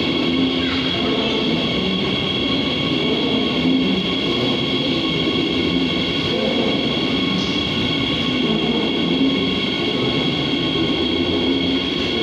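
Madrid Metro Line 10 train running along the station platform: a steady, loud rumble of wheels and running gear with a steady high-pitched whine above it.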